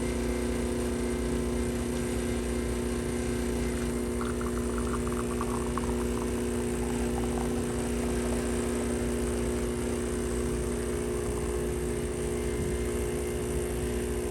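Profitec Pro 300 espresso machine's vibratory pump buzzing steadily while pulling a shot of espresso. About four to seven seconds in there is a faint light patter, the espresso stream running into the cup.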